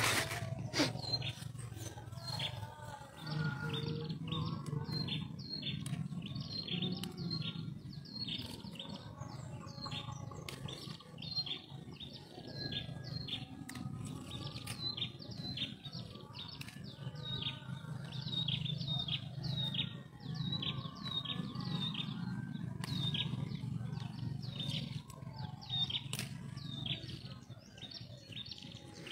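Birds chirping: many short, high chirps, several a second, kept up without a break, over a steady low hum.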